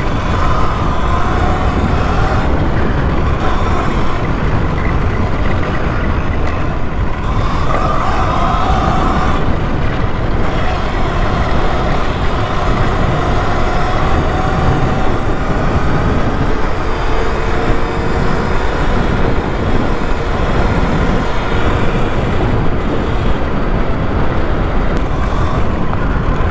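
Electric dirt bike on the move over grass and a concrete path: steady wind and tyre rumble over the mic, with a faint electric motor whine that drifts up and down in pitch as speed changes.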